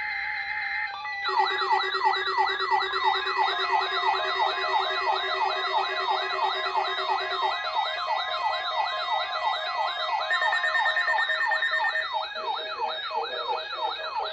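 Several weather radio receivers sounding their electronic alert sirens at once, set off by the NOAA Weather Radio weekly test signal: overlapping wails sweeping up and down about three times a second over steady beeping tones. A second of steady tone comes first, and the sirens cut off together near the end.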